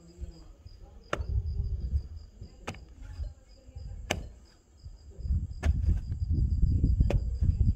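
Pickaxe blows striking hard-packed earth, five strikes about every one and a half seconds, each followed by a low rumble of loosened soil and handling.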